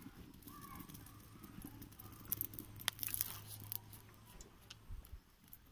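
Faint scattered crackling and ticking from a hot iron kadai over a wood-fired clay stove as a little oil heats in it, with a few sharper ticks about two to three seconds in, over a low steady hum.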